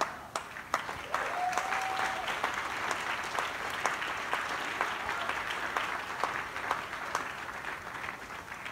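Congregation applauding, a dense patter of many hands clapping that thins out near the end.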